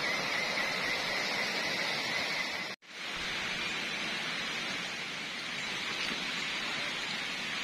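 Steady rushing hiss of outdoor forest ambience, with a steady high whine over it for the first few seconds. The sound cuts out for an instant just under three seconds in, then the hiss carries on.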